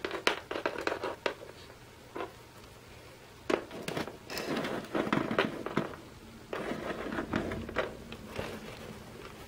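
Scattered light taps, clicks and rustling as small plastic Littlest Pet Shop figurines are handled by hand and set down on a wooden floor, busier in the middle stretch.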